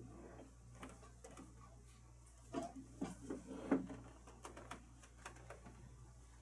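Clicks, knocks and scrapes of a flat-screen TV's metal mounting rails being hooked onto a swing-arm wall bracket, with a cluster of knocks in the middle, the loudest about three and a half seconds in.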